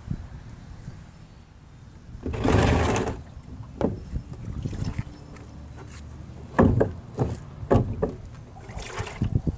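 A wheeled plastic trash bin being moved on concrete: a loud scraping rush about two seconds in, then a series of sharp knocks and clacks.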